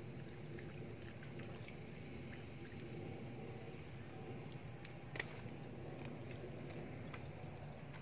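Scissors snipping and hands working netting off a snake: faint rustling and scattered small clicks, with one sharper snip about five seconds in. A few short, high, falling chirps sound over a low steady background.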